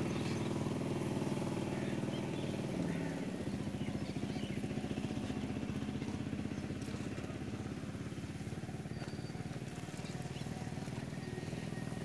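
A small engine running steadily with a fast, even pulsing, a little quieter after about three seconds.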